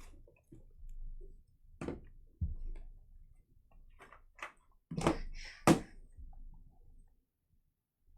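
A few sharp taps and clicks with light rustling: trading cards and plastic card holders being handled, the loudest two clicks near the end.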